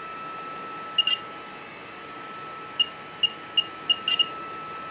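BigTreeTech TFT touchscreen beeping as its on-screen buttons are tapped: short, high key-press beeps, a quick pair about a second in, then a fast run of about seven from around three seconds on.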